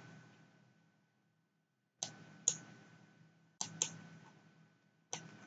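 A few faint computer mouse button clicks, some in close pairs.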